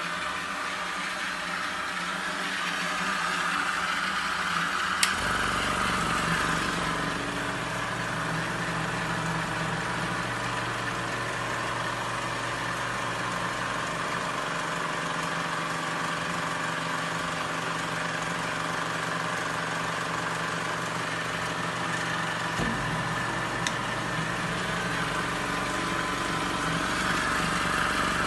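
Small air compressor used to aerate water, running with a steady hum and hiss. A click about five seconds in, as a deeper hum comes on and holds for the rest of the time.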